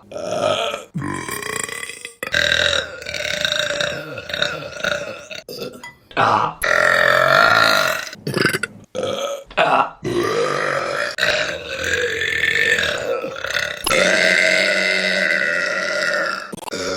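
Women burping, one after another with sudden breaks between the burps: about ten in all, the short ones early on, then several long, drawn-out pitched burps lasting two to four seconds each.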